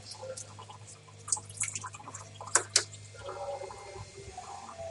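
Water sloshing and dripping as a sponge scrubs the inside of a plastic bottling bucket partly filled with cleaning solution, with a few short splashes.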